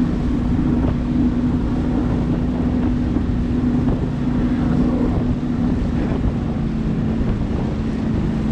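Boat's outboard motor running steadily with the boat on plane, water rushing along the hull and wind buffeting the microphone.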